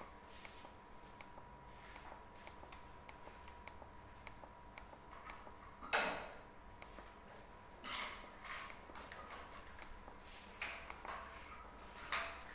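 Front-panel push buttons of an Esters Elektronik PMO digital display pressed repeatedly by a gloved finger, giving sharp clicks about every half second. Louder rubbing knocks of the glove against the panel come about halfway through, about two seconds later and near the end. A faint steady high tone runs underneath.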